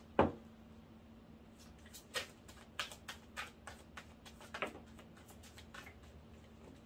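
Tarot cards being handled in the hands: one sharp tap just after the start, then a run of irregular light clicks and snaps as cards are spread and drawn from the deck.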